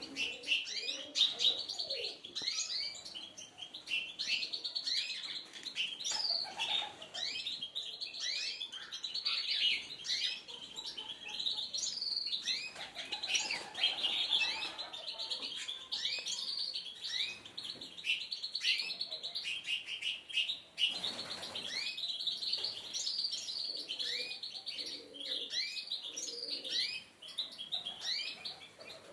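Many small songbirds chirping and twittering together in a dense, unbroken chorus of short high chirps and quick sweeping notes.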